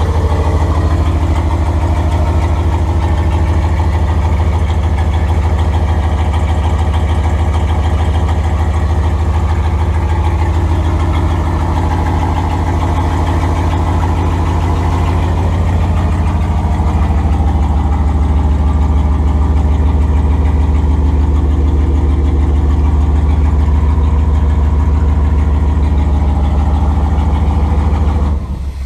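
Turbocharged Dodge Ram 5.2L Magnum V8 idling steadily, really loud, through a freshly built turbo exhaust that is only tack-welded, with quite a bit of exhaust leaking at the tacked joints.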